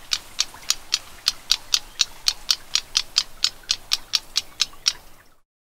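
Black-browed reed warbler giving a steady series of short, harsh call notes, about four a second, that break off about five seconds in.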